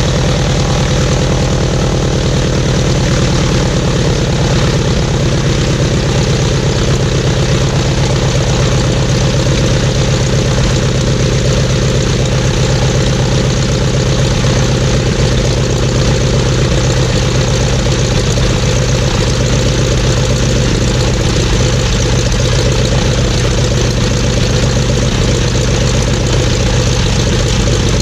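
Jacobs R-755-B2 seven-cylinder radial engine of a 1959 Cessna 195B, with its propeller turning, running steadily at an unchanging speed. It is loud, with a deep, even beat.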